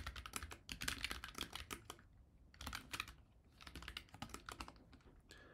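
Typing on a computer keyboard: quick runs of keystrokes in several bursts with short pauses between, stopping near the end.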